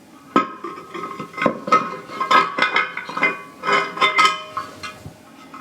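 Metal telescope tripod parts being handled: a quick, irregular series of light knocks and clinks, each with a short metallic ring.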